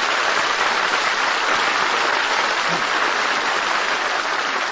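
Studio audience applauding steadily as the stars come on, easing off slightly near the end.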